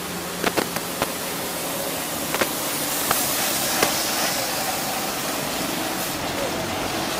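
A truck and a minibus driving round a tight hairpin close by: a steady rushing noise of engines and tyres that swells about three seconds in, broken by a few sharp knocks in the first four seconds.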